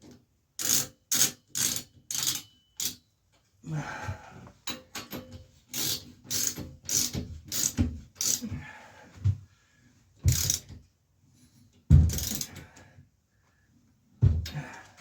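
Ratchet wrench clicking in short strokes, roughly two a second, in several runs with pauses between them, as a nut is run down to hold a removal tool on a bicycle's bearing cup.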